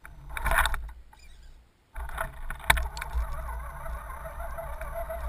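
Electric motor and gears of an Axial SCX10 RC crawler whining steadily, with a slightly wavering pitch, as the truck drives over wet leaves. A short splashy burst comes about half a second in, before the motor sound settles in at about two seconds, and a sharp click comes near three seconds.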